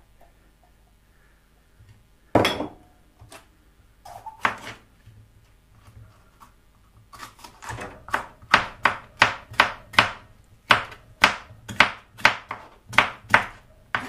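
Chef's knife slicing a yellow bell pepper on a plastic chopping board. In the second half the blade knocks on the board in a quick regular run, about two to three strokes a second. Earlier there are a few single knocks, the loudest about two seconds in.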